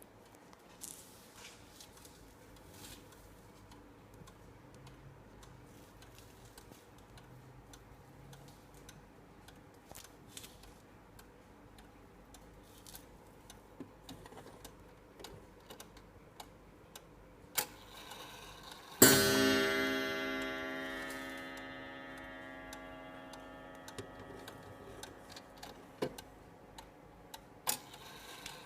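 Tempus Fugit 31-day mantel clock ticking faintly, then, about two-thirds of the way through, striking once with a loud ringing tone that slowly fades, a single click coming just before the strike.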